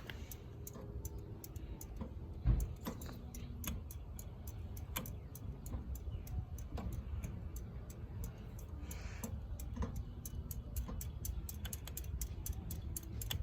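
A run of faint, sharp ticks over a low hum: about two ticks a second, coming quicker toward the end. It comes from a Litex Windsong ceiling fan set to reverse, where it will not run properly, a fault the owner puts down to a bad reverse switch.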